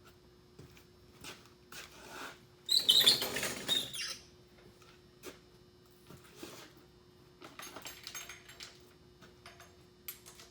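Hand tools and parts being handled during engine work: scattered light clicks and taps, with a louder scraping rustle lasting about a second and a half, about three seconds in.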